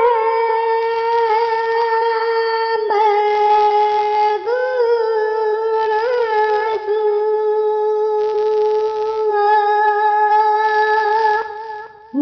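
A single voice chanting in long notes held at one steady pitch, joined by short rising-and-falling melodic turns, fading out near the end.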